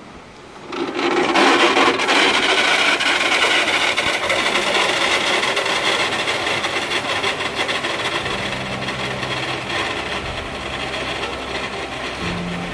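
Steel pulley wheels of a river cableway carriage rolling along its overhead steel cable: a loud, steady rasping whir that starts abruptly about a second in and fades gradually as the cage travels away across the river.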